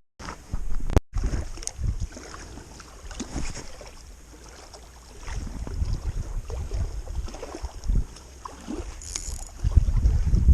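Wind buffeting the microphone in gusts on a kayak out on the water, loudest near the end, with a sharp click about a second in.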